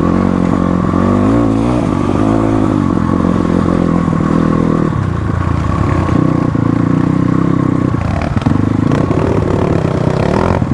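Motorcycle engine running, its pitch rising and falling with the throttle in the first few seconds, then holding steadier.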